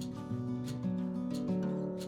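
Background music: strummed acoustic guitar with a light, regular beat.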